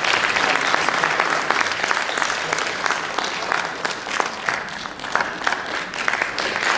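Audience applauding, a dense patter of hand claps that thins out a little past the middle and fills in again near the end.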